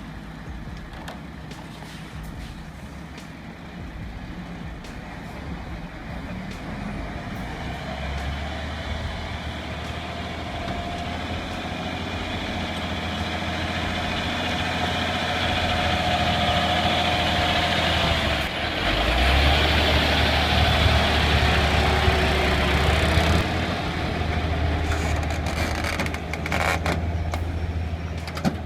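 A heavy truck's diesel engine running steadily, growing louder over the stretch, with a short dip about two-thirds of the way through before it comes back loudest.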